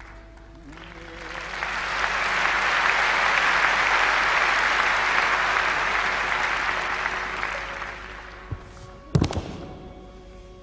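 Audience applauding in a large arena. The applause swells over the first couple of seconds, holds, then fades, over quiet background music. Near the end there are two sharp thuds, the second one louder.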